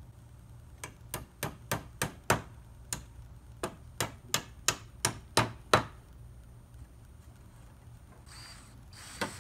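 A hammer striking the wood of an old cedar playset panel while accessory pieces are knocked loose: a run of about a dozen sharp blows, roughly three a second with a short break, then a pause and two more blows near the end.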